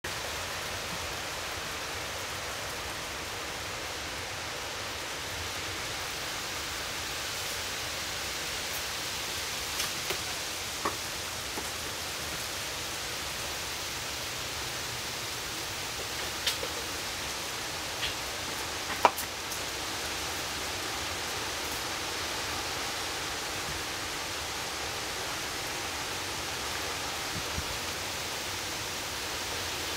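Steady rain falling, an even hiss, with a few sharp ticks and short pings scattered between about ten and twenty seconds in.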